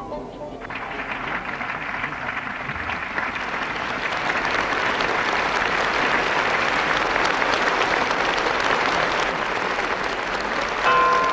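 Audience applause starting about half a second in and swelling steadily louder, with music beginning near the end.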